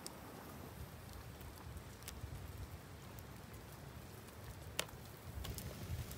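Faint wind rumble with a few soft, sharp clicks, about three in all.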